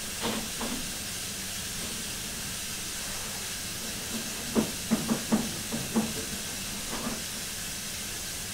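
LMS Stanier Black Five 4-6-0 steam locomotive No. 5428 standing in steam, with a steady hiss of escaping steam. A string of short, sharp knocks sounds over it, most of them bunched between about four and six seconds in.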